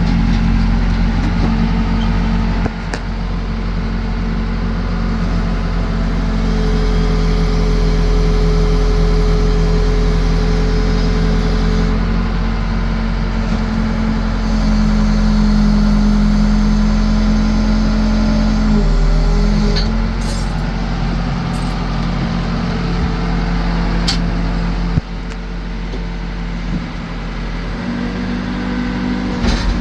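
Case 580 Super L backhoe's four-cylinder diesel engine running steadily, its note shifting a few times and dropping somewhat about 25 seconds in, with a few sharp clanks from the machine.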